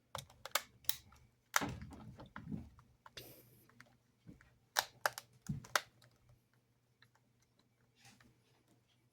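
Irregular light clicks and taps of a small screwdriver and fingers working the tiny screws of a plastic model-train tender, with a few duller knocks about 1.5 and 5 seconds in; the clicks thin out over the last few seconds.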